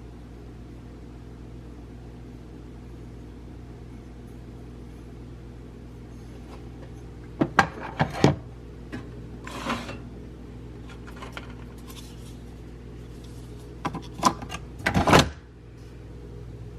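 Steady low electrical hum with a few bursts of clicks and knocks, as of objects being handled and set down: two clusters, about halfway through and near the end, these being the loudest sounds.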